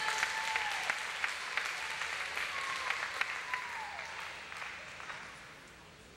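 Small audience applauding in an ice rink, with a few falling whistled notes over the clapping. The applause dies away about five seconds in.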